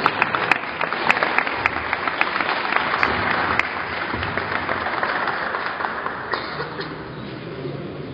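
Applause: many hands clapping, loudest at first and dying away over about six seconds.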